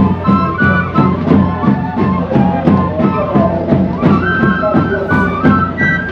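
Music: a flute-like melody in traditional style over a steady beat of about three strokes a second.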